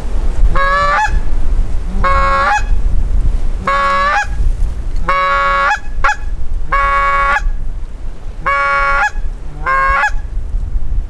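Goose call blown by the hunter, sounding seven honks about a second and a half apart at flying geese, each a short low note that breaks up into a higher, louder honk. Wind rumbles on the microphone underneath.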